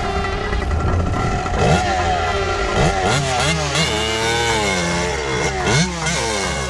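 Kawasaki KX125 single-cylinder two-stroke engine revving hard up and down in quick repeated blips from about two seconds in, as the rear wheel spins in mud.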